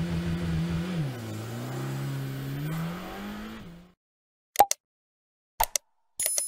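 Car engine accelerating hard: the pitch climbs and holds, drops sharply at a gear change about a second in, then climbs again before cutting off suddenly near four seconds. After a short silence come a few sharp clicks and pops.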